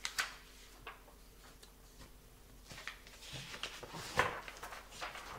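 Sheets of paper being handled and moved on a tabletop: a few light clicks, then rustling and sliding that grows about three seconds in and is loudest about four seconds in.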